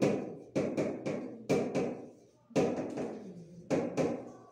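Someone writing on a board: a run of sharp taps, about two a second, each dying away briefly in the room, with a short pause about two seconds in.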